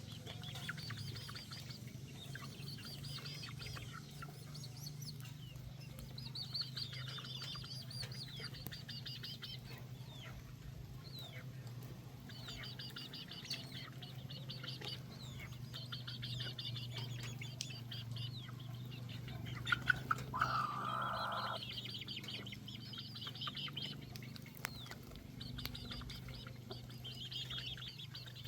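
Chicks peeping in repeated high-pitched bursts, with a louder, lower clucking call about two-thirds of the way through. A steady low hum runs underneath.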